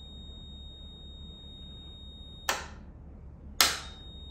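A Club Car DS golf cart's main solenoid clicking sharply twice, about a second apart, as it is switched out and back in. Over it a multimeter's continuity beep holds a steady high tone, cutting off at the first click and coming back at the second: the solenoid's contacts are closing across the big lugs.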